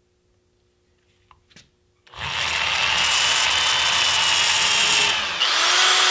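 Electric drill starting up about two seconds in and running loud and steady, its bit boring into the edge of a trellis bar, with a whine over the cutting noise. It dips briefly about five seconds in, then runs on with the whine rising a little.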